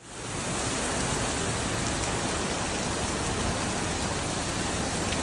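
Heavy rain pouring onto a flash-flooded street with floodwater rushing across it: a steady hiss that fades in quickly at the start.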